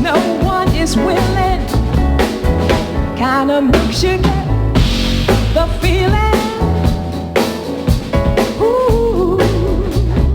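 Background music: a song with a sung melody over a steady drum and bass beat.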